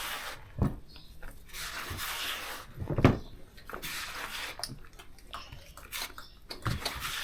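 Bhajia mixture of flour and chopped vegetables being mixed in a bowl: irregular swishing and scraping with a few sharp knocks, the loudest about three seconds in.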